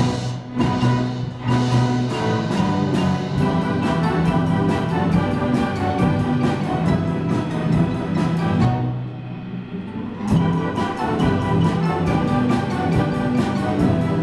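A youth orchestra of strings, brass and percussion playing a piece, with held chords under a quick, even percussion beat. About nine seconds in the beat stops and the music thins out for a moment, then the full texture comes back.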